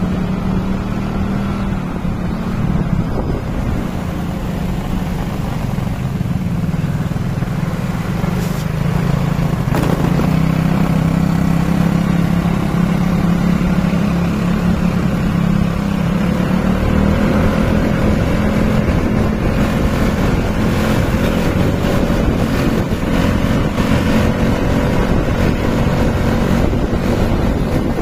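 Small motorcycle engine running steadily while riding along a road, with wind buffeting the microphone; the engine note shifts a little as the speed changes.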